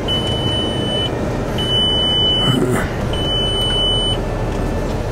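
Three long, steady electronic warning beeps from a 2005 VW Passat's instrument cluster, about a second each with short gaps, sounding with a red STOP warning lit. Under them the climate-control blower runs steadily on high to defog the windshield.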